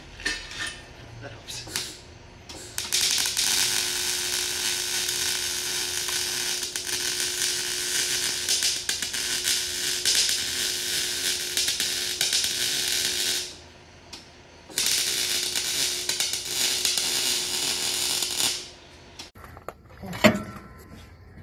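Wire-feed welder laying a bead on a steel exhaust pipe joint: a loud, steady crackling sizzle over a low hum, in two runs, the first about ten seconds long and the second about four seconds after a short pause. Near the end, a few sharp metal clicks and knocks.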